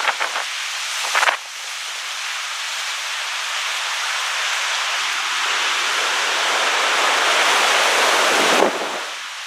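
Big ocean waves breaking, a dense rush of surf with a few sharp slaps in the first second and a half. The surf swells for several seconds and then drops off sharply near the end.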